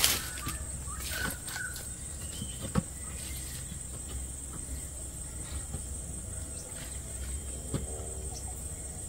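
Rural outdoor ambience: a steady high insect drone, a few short bird chirps about a second in, and a faint bird call near the end. Occasional light knocks and rustles come from the fruit and its plastic bag being handled.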